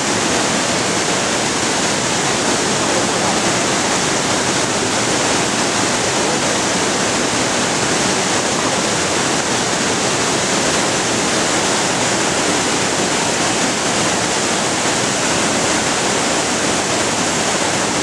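Waterfall in a rocky mountain gorge, water pouring over rocks in a loud, steady rush with no let-up.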